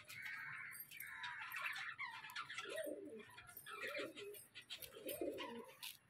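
Budgerigars chattering and warbling. A lower arched call comes three times, a little over a second apart, in the second half.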